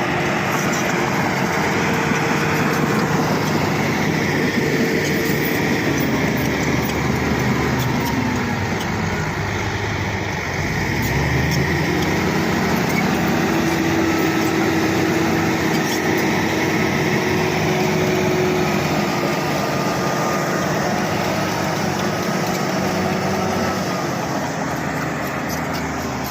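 Bulldozer's diesel engine running continuously, its pitch sagging about ten seconds in and climbing back up.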